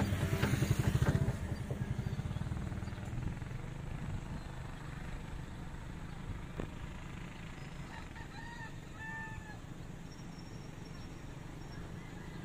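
A rooster crowing faintly twice, about eight and nine seconds in, over a steady low rumble that is loudest in the first second.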